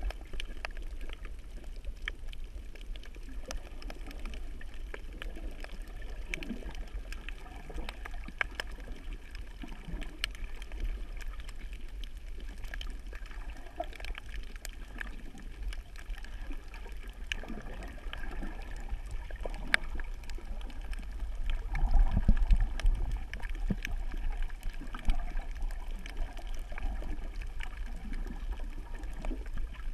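Underwater sound picked up through a camera housing in the sea: water moving and gurgling, with scattered sharp clicks throughout and a louder low rumble about two-thirds of the way through.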